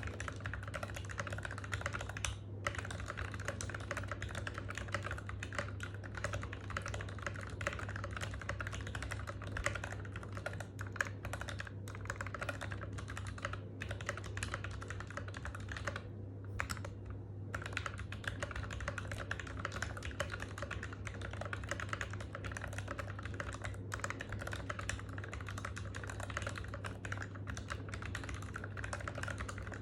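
Continuous typing on an NK65 v2 aluminum mechanical keyboard with lubed Gateron Ink Black V2 linear switches and PBT keycaps, the keystrokes clicking densely, with a pause of about a second a little past the middle. A steady low hum runs underneath.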